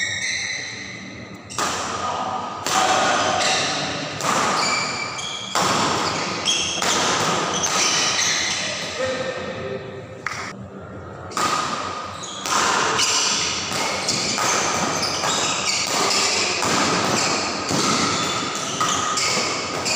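Badminton doubles rally in a large hall: repeated racket strikes on the shuttlecock and thuds of players' feet on the court, with spectators' voices.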